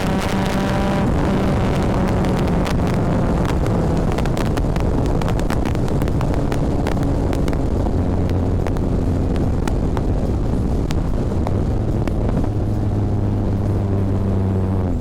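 Scion tC's 2AZ-FE four-cylinder engine and straight-piped exhaust, heard while the car is driven at a fairly steady speed. The engine note holds nearly constant, with small shifts in pitch, over road and wind noise that includes scattered short knocks.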